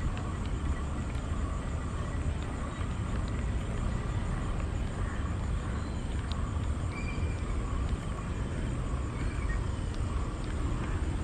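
Steady low rumble of distant road traffic crossing a river bridge, with a few faint short chirps now and then.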